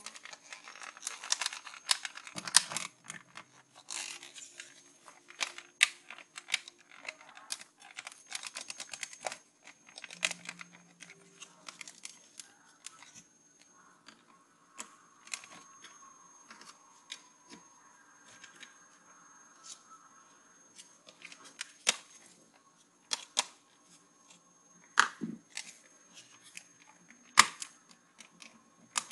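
Plastic and metal parts of an opened CD-ROM drive being handled and worked with a screwdriver: irregular clicks, taps and short scraping rustles.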